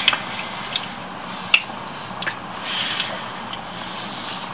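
A few small sharp clicks and two soft breathy swells over a steady hiss, typical of close-up mouth and breathing sounds.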